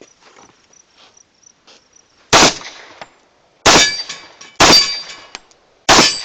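Four shots from a .45 ACP 1911 pistol, spaced about a second apart, starting a little over two seconds in. Each shot is followed by the ringing clang of a steel target being hit.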